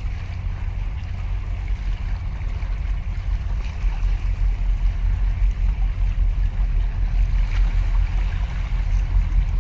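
Wind buffeting the microphone in a steady low rumble, over small sea waves lapping and splashing against concrete breakwater blocks.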